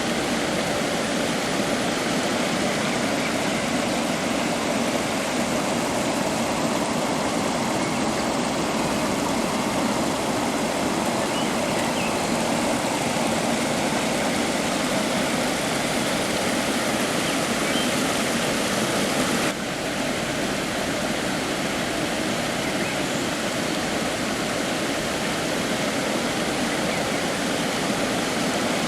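Steady rushing water of a stream or waterfall, an even, unbroken wash. About two-thirds of the way through, the sound changes slightly and drops a little in level.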